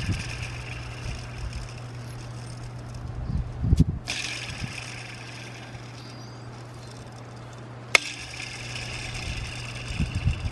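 Hand tools at work on a car's engine: a few dull knocks and one sharp click about eight seconds in, over a steady low hum.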